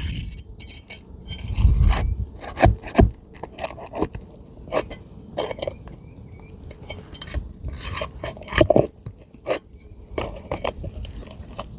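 Metal tool scraping and clinking against asphalt shingles and roofing nails as the nails are worked out from under the shingle: a scattered run of sharp clicks, taps and scrapes, with a few louder knocks about two and a half to three seconds in and again near nine seconds.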